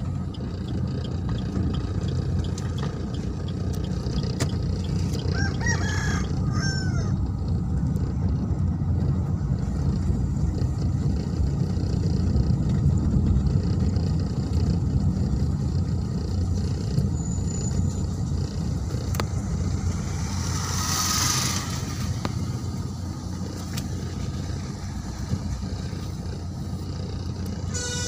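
Steady low rumble of a vehicle driving along a road, heard from inside it. A rooster crows briefly about six seconds in, and there is a short hiss about twenty seconds in.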